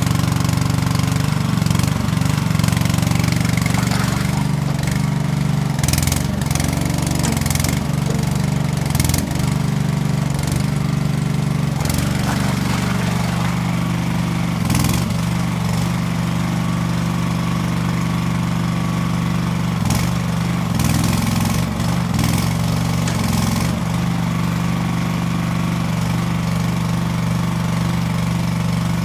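Skid-steer loader's engine running, its pitch shifting and wavering through the first half with sharp clanks now and then, then settling into a steady run.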